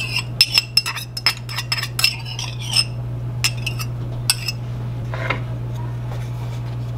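A metal utensil clinking and scraping against a small ceramic cup as beaten egg yolks are scraped out into a saucepan. There is a quick run of clinks for about three seconds, a few more around four seconds in, and then it goes quieter, with a steady low hum underneath.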